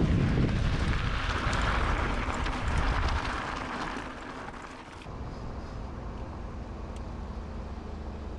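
Wind rushing over the microphone and road noise of riding a bicycle, loud at first and dying down after about three seconds. After about five seconds it changes to a quieter, steady low hum.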